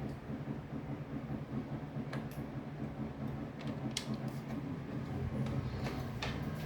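Three faint, sharp knocks about two seconds apart, heard over a steady low hum: banging carried through the building from a flat upstairs.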